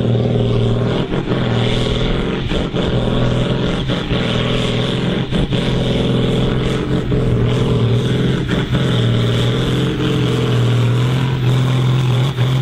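Ford pulling tractor's diesel engine running flat out and steady under heavy load as it drags a weight-transfer sled down the pulling track.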